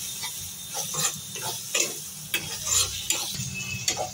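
Flat metal spatula scraping and stirring a thick spice masala with peas around a kadai in repeated uneven strokes, over a steady sizzle of oil: the masala being fried down (kosha).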